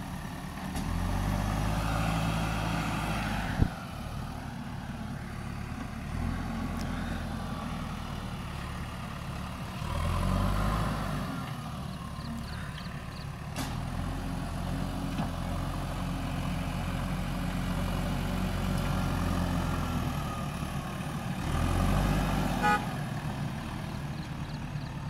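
JCB backhoe loader's diesel engine running, with the revs rising in three swells as it works the loader arm and drives. One sharp knock about three and a half seconds in.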